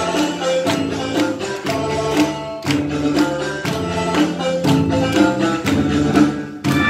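Music for a Vietnamese traditional dance: sustained melody notes over a steady percussive beat, about two strokes a second.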